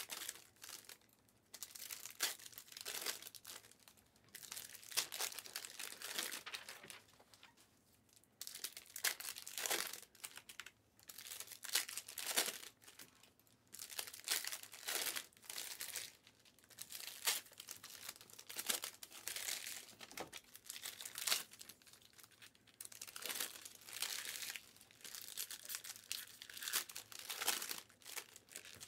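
Foil wrappers of 2020-21 Panini Prizm Fast Break basketball card packs being torn open and crinkled by hand, in short irregular bursts.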